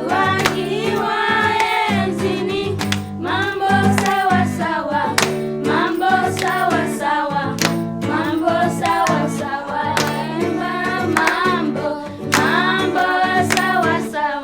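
Song with singing over a steady instrumental accompaniment with a regular beat.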